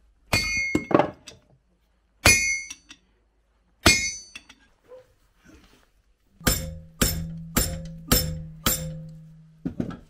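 Hand hammer blows on a horseshoe to cut it down. First it is struck on an anvil: four separate blows, each with a bright metallic ring. About six seconds in come five quicker blows about half a second apart on the shoe held in a bench vise, with a lower ring held beneath them.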